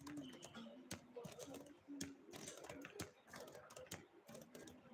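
Faint sharp clicks, roughly one a second, over faint background voices.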